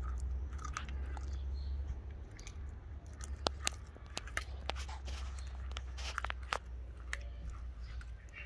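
F1 Savannah cat chewing a raw chicken leg: wet chewing broken by irregular sharp crunches as its teeth work the meat and bone, most frequent in the middle of the stretch, over a low steady rumble.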